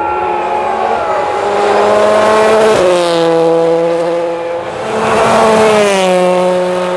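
Rally car engine at high revs as the car passes. Its pitch climbs, drops sharply about three seconds in, climbs again and falls once more near the end.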